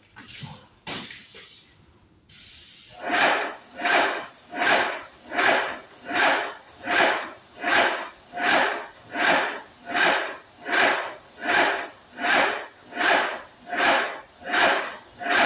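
Graco airless paint sprayer spraying oil-base primer: the gun's spray hiss starts suddenly about two seconds in, and the piston pump strokes at an even beat of about four every three seconds.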